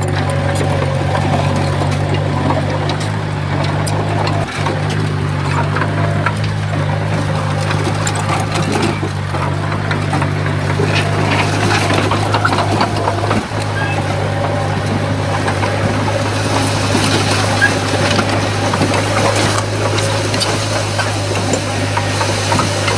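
Komatsu bulldozer's diesel engine running steadily under load, with scattered clanks and rattles.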